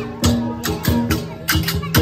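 Central Highlands cồng chiêng gong ensemble playing: hand-held flat gongs struck in a quick, steady rhythm of several strokes a second, their pitched tones ringing on between strokes.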